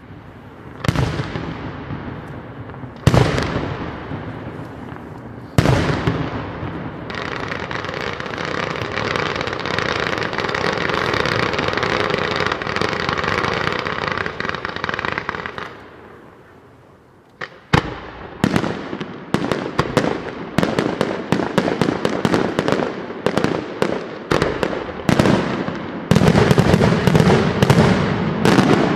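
Fireworks display: three loud bangs about two and a half seconds apart, each dying away in an echo, then a dense steady crackling hiss for about nine seconds that fades out. About two-thirds of the way through, a rapid run of sharp bangs begins, several a second.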